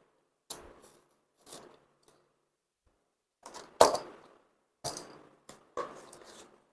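A cardboard keyboard box being opened by hand: a string of short, sharp snaps and scrapes of cardboard and packing, the sharpest about four seconds in.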